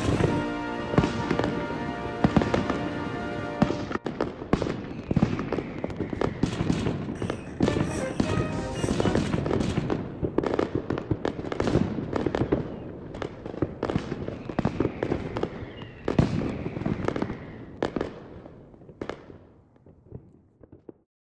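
Fireworks going off in quick succession, many sharp bangs and crackles, over music that is clearest in the first few seconds; the whole sound fades out near the end.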